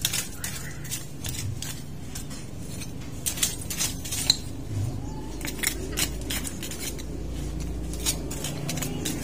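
Hand-weeding: irregular sharp clicks and rustles as weeds are pulled and handled with gloved hands.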